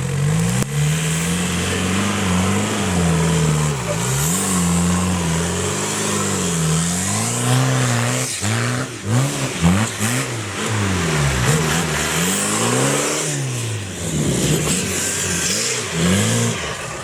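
Engine of an extreme-class off-road 4x4 competition vehicle revving up and down repeatedly, its pitch rising and falling about once a second.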